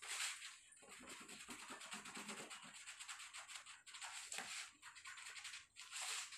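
Hands rubbing quickly back and forth over a glued cardboard disc, pressing the pasted layer flat: a faint, scratchy rubbing of many short strokes, several a second.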